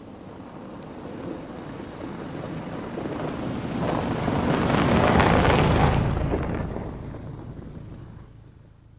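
A car passing by: its sound swells as it approaches, is loudest about five to six seconds in, then fades away.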